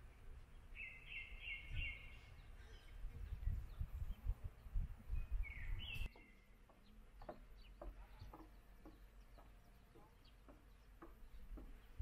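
Outdoor ambience of songbirds calling over wind rumbling on the microphone: a quick run of high chirps about a second in and another call about halfway. It then drops abruptly to a quieter background with scattered short chirps or clicks.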